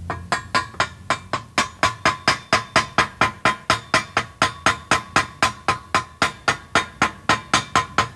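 Chipping hammer striking a freshly laid stick-weld bead on steel in quick, even blows, about four a second, each with a short metallic ring: the slag crust is being knocked off the weld.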